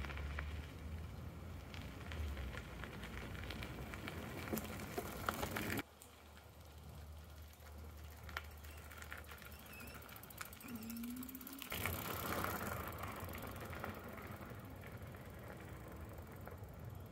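Juiced HyperScrambler 2 e-bike being ridden over rough ground: steady tyre and frame noise with scattered clicks and rattles. The sound drops suddenly about six seconds in and picks up again about twelve seconds in.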